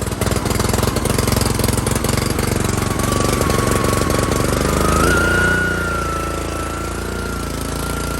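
Honda GCV160 single-cylinder engine on a pressure washer running steadily after a pull-start, its clogged carburetor jets freshly cleaned. A thin high whistle comes in about three seconds in and steps up in pitch a couple of seconds later, as the engine note eases slightly.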